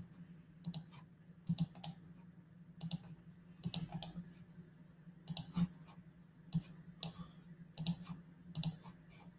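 Scattered clicking of a computer mouse and keyboard, a click or a quick pair of clicks about every second, over a faint steady low hum.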